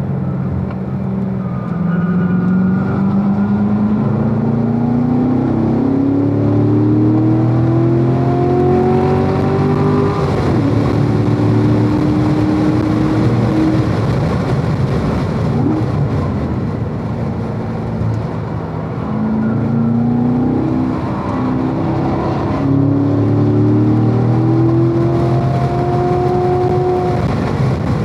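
Chevrolet V8 on a race track, heard from inside the car: it pulls hard out of a slow corner, rising in pitch for about ten seconds, then shifts, lifts off and brakes near the middle before accelerating hard through the gears again in the last third. Wind and road noise run under it.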